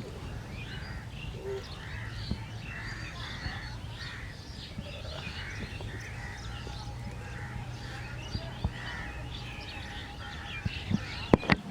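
Birds chirping and calling over and over in short notes, with a low steady hum underneath and a few sharp knocks near the end.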